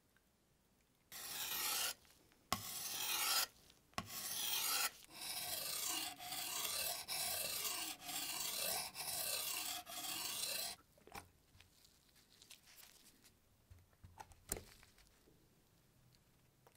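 A guillotine blade being ground across a wet 3000-grit whetstone: about nine rasping strokes, roughly one a second, that stop about 11 seconds in. A few faint clicks follow.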